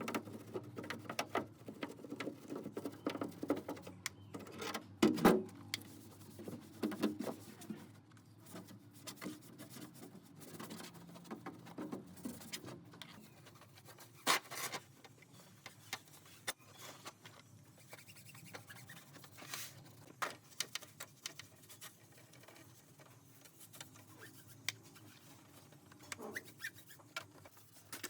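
Irregular light tapping, clicking and scraping of hand work on small parts, with a sharper knock about five seconds in and another about fourteen seconds in.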